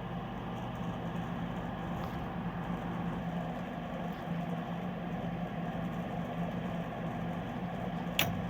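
Coleman mobile home furnace draft inducer motor running with a steady hum while the furnace waits to ignite; the inducer is worn enough that it needs replacing. A single sharp click comes near the end.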